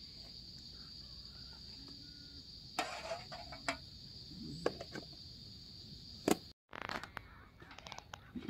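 Steady high-pitched insect chirring, with a few scattered knocks and clatters. The chirring cuts off abruptly about six and a half seconds in, and faint clattering follows.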